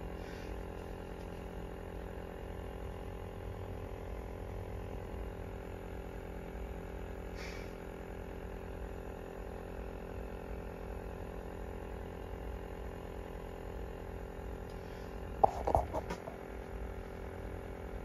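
A steady hum made of several steady tones over a low rumble, broken about fifteen and a half seconds in by a short cluster of sharp knocks.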